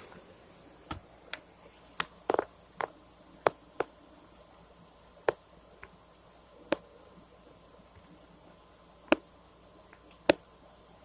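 A string of sharp, irregular clicks and taps, about fifteen over eleven seconds, with short gaps between them.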